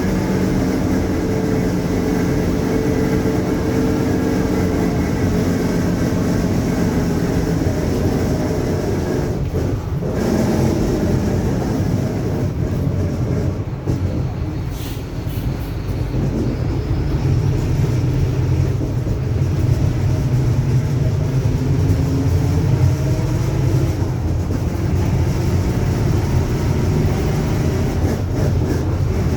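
Mercedes-Benz OF-1721 bus's four-cylinder diesel running under way, with the rear differential growling as a steady whine over the engine. The pitch sags and the sound eases off around ten to fifteen seconds in, then rises and grows louder again from about seventeen seconds as the bus pulls away.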